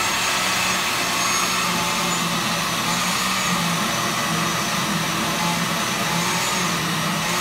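Countertop blender running steadily, its motor hum constant as it purees soaked black-eyed peas and red pepper into a thick moin moin batter.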